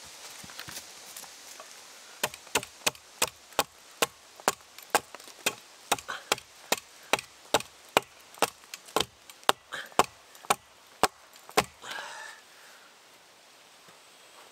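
A hatchet chopping into the bottom end of an upright log, trimming it to fit into a log wall. The blows are quick and sharp, about three a second, starting about two seconds in and stopping near the end.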